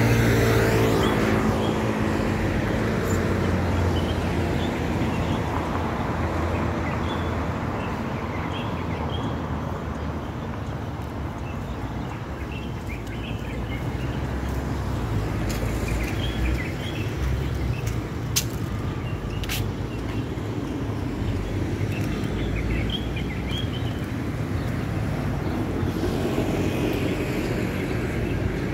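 Outdoor street ambience: a steady rumble of road traffic, with small birds chirping now and then. Two short sharp clicks come about two-thirds of the way through.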